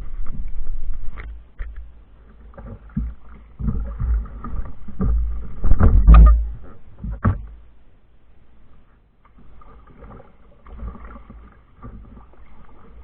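A fishing kayak on the water: irregular knocks and thumps against the hull with low rumbling, loudest about six seconds in, then a quieter steady wash of water.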